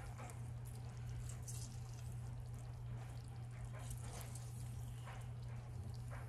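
Fresh orange squeezed by hand over a pot of simmering pork, its juice dripping and spattering into the liquid in short, scattered splashes, over a steady low hum.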